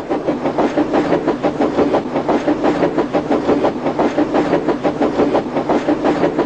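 A train running on rails with a fast, even clickety-clack of wheels.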